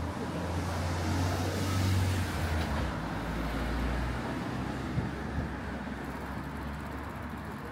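Street traffic, with a motor vehicle passing close by: its low engine rumble and tyre noise swell to a peak about two seconds in and fade by about four seconds, leaving a steadier traffic hum.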